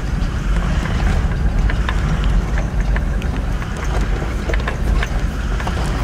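Cabin noise of a Toyota Land Cruiser LX V8 driving along a dirt track: a steady low drone from the V8 engine and its aftermarket De Graaf exhaust, mixed with road and wind noise. Scattered light knocks and rattles come from the bumps.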